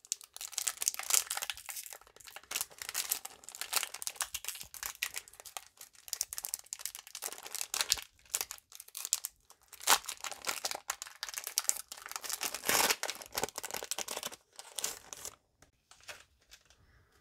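Foil wrapper of a Pokémon card booster pack crinkling and tearing as it is worked open by hand, in irregular crackles. The sharpest crackles come about ten and thirteen seconds in, and it goes quiet a second or two before the end.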